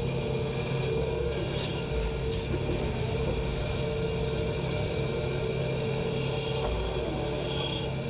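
Hitachi crawler excavator's diesel engine and hydraulics running steadily while it digs and loads gravel: a continuous hum with steady higher tones over it.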